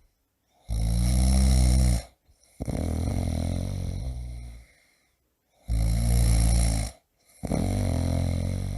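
A sleeping person snoring loudly through two breath cycles: each is a strong, deep snore of about a second followed by a longer snore that fades away, with a brief silence between breaths.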